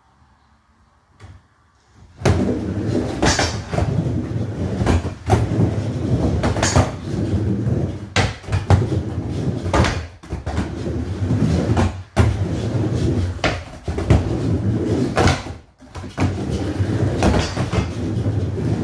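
Skateboard wheels rolling on a wooden mini ramp, a loud continuous rumble that starts about two seconds in. Sharp clacks of the board striking the ramp recur roughly every two seconds as it rides back and forth.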